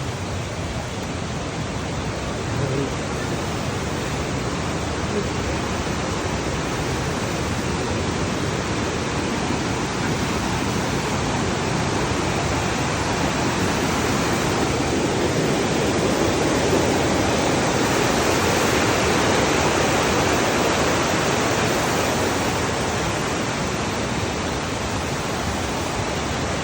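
Tad Sae waterfall's water rushing steadily, an even, dense noise of falling water that grows a little louder midway through.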